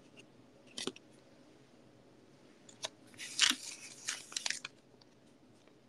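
Quiet handling noise: a single click about a second in, then a short stretch of rustling and scraping between about three and four and a half seconds in.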